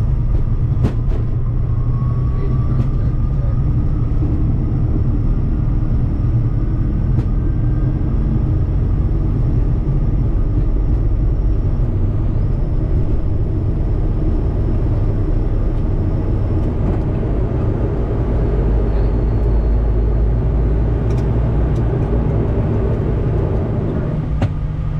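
Bombardier Challenger 350 on its takeoff roll, heard from the cockpit: a loud, steady rumble of the two Honeywell HTF7350 turbofans and the wheels on the runway, with a faint whine rising in pitch during the first several seconds as the jet accelerates. About 24 seconds in, the rumble eases as the jet lifts off.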